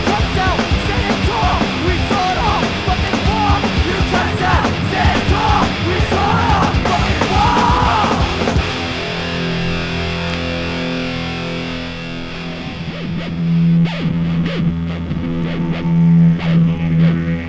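Screamo band playing: distorted guitars and drums with a screamed vocal, which gives way about nine seconds in to held, ringing chords with scattered drum hits.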